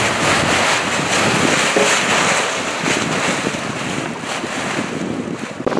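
Wind buffeting the microphone over the rush of water along the hull of a J/70 sailboat under way. It is a loud, steady noise with no distinct tones.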